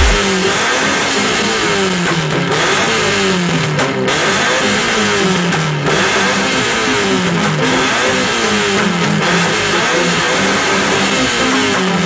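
Car engine revved hard again and again, each rev falling back in pitch, in cycles of about one and a half to two seconds.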